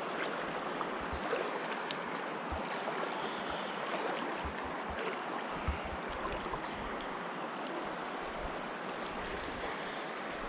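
Shallow river water running and rippling over a rocky bed, close to the microphone, with a few soft low bumps.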